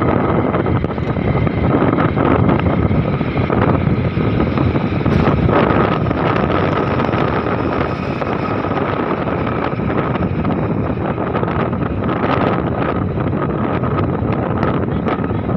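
Motorcycle riding along at road speed: its engine running steadily under heavy wind noise on the microphone.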